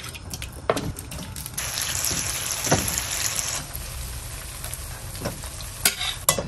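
Strips of red bell pepper sizzling in hot grapeseed oil in a frying pan, with a louder burst of sizzling for about two seconds starting around a second and a half in. Metal tongs click a few times against the pan.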